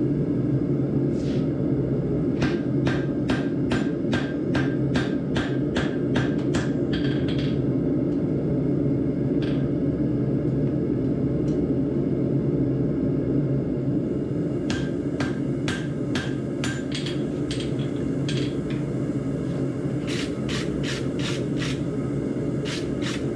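Hand hammer striking a glowing steel billet on an anvil, in three runs of rapid blows of about three a second, each blow with a short metallic ring. Under it the forge runs with a steady low roar.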